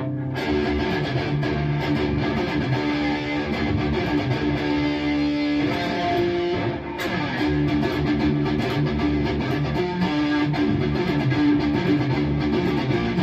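Electric guitar played through a Bogner Uberschall preamp, a riff of picked notes and ringing held notes with a short break about halfway through.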